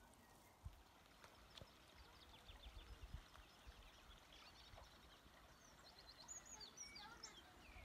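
Faint birdsong: a quick run of short high chirps in the middle, then a burst of varied high notes near the end, over low rumbling and a few soft knocks.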